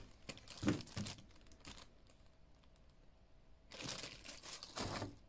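Clear zip-top plastic bags crinkling as they are handled: a few brief rustles in the first two seconds, a quiet pause, then a longer rustle near the end.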